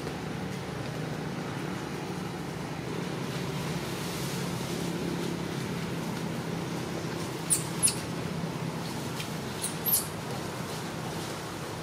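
Infant long-tailed macaque squeaking: four short, very high-pitched squeals in two pairs, about two seconds apart, over a steady low background hum.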